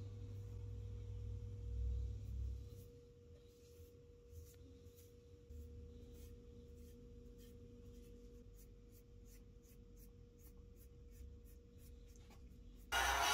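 Bristle brush strokes on a wooden clock face: faint soft swishes that come about three a second later on, over a steady faint hum. Near the end a heat gun switches on suddenly with a loud, steady blowing hiss.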